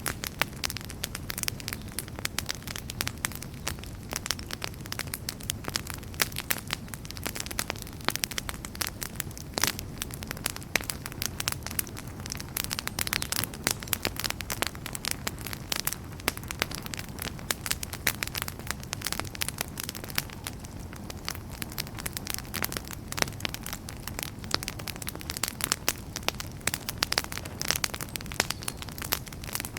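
Wood campfire burning with constant irregular crackling and snapping pops over a low steady rumble of the flames.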